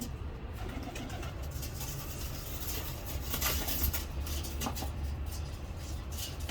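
Birds calling over a steady low rumble, with scattered clicks and a brief louder rush of noise about three and a half seconds in.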